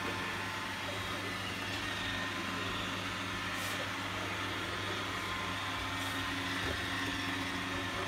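iRobot Roomba 871 robot vacuum running across a flat-woven rug: a steady hum from its vacuum motor and rollers.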